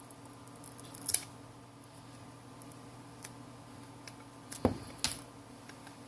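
A few small, sharp clicks and taps of hand tools and phone parts during a smartphone teardown: one click about a second in and two louder clicks near the end, over a faint steady hum.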